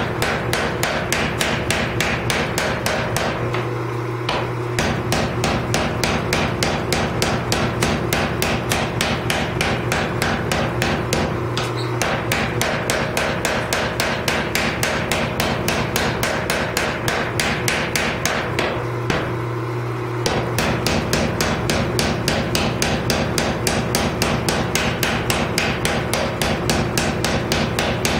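Mechanical power hammer pounding a hot Damascus billet in rapid, even blows. It stops three times for a moment, leaving the hammer's motor humming steadily, then starts pounding again.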